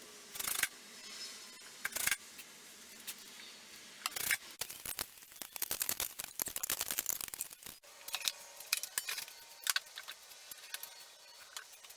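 Irregular run of small clicks, taps and light knocks from hardware or tools being handled, thicker in the second half.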